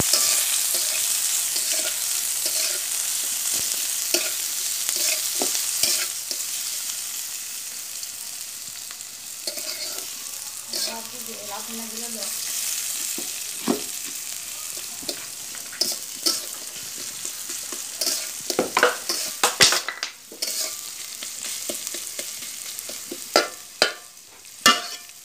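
Sliced onions sizzling in hot oil in a metal karahi, the sizzle loudest at the start and easing off. A metal spatula stirs the onions, with sharp scrapes and clicks against the pan coming thick in the last several seconds.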